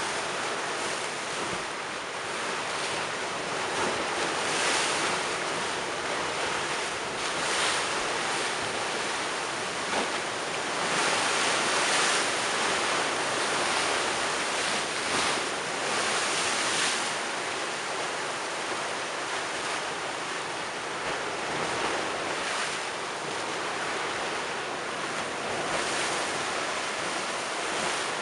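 Rough sea waves from a storm surge breaking against a stone seawall and steps, then rushing and washing back, swelling louder every few seconds as each wave hits.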